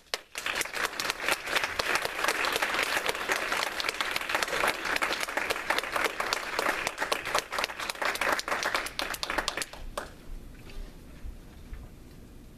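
Audience applauding in a small room: dense, steady clapping that stops fairly abruptly about ten seconds in, leaving quiet room sound with a few faint taps.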